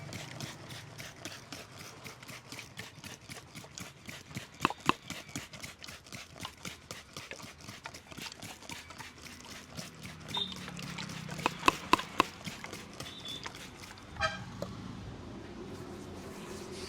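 Rapid rhythmic hand tapping on the head during an Indian head massage, about five pats a second, with a few much louder sharp claps around 5 s and 12 s in. The tapping stops about 14 s in.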